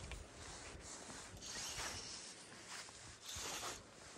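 Fly line rasping through the rod guides and the fingers in a series of short, hissing swishes as line is stripped in and shot out on a cast.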